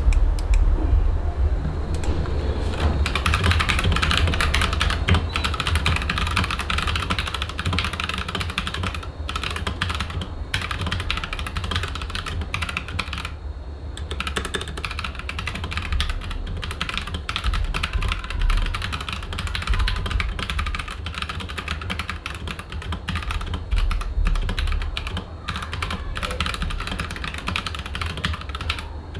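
Lofree Wanderfree mechanical keyboard with stock Gateron Brown tactile switches, typed on continuously with fast key clicks and a few short pauses.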